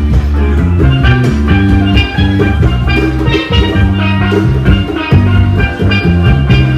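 A band playing music: bright pitched melodic notes over a bass line and drums.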